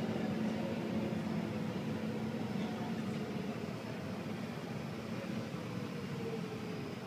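Inside a BART train car slowing into a station: a steady rumble and hiss of the running gear, growing gradually quieter, with a faint whine that falls slowly in pitch as the train brakes.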